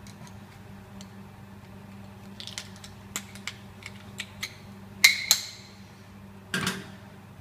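Metal items clinking and clattering as they are handled and moved on top of a MIG welder: scattered light clicks, then two sharp ringing metal clanks about five seconds in and a duller knock shortly after. A steady low hum runs underneath.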